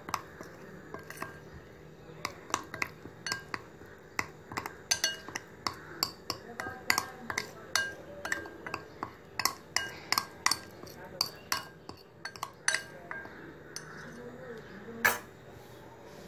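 A spoon clicking and scraping against a plate while stirring a thick tandoori masala paste: a string of sharp, irregular clicks, about two or three a second, with one louder knock about fifteen seconds in.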